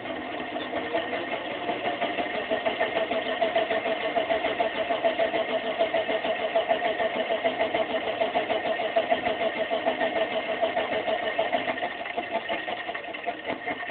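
Motor of a spinning LED propeller display running at speed, the rotating board whirring with a fast, even pulsing and a steady hum.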